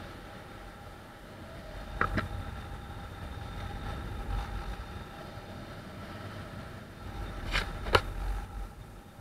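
Steady wind rush on the action camera's microphone during a paraglider flight, interrupted by a couple of sharp knocks about two seconds in and a pair more near the end.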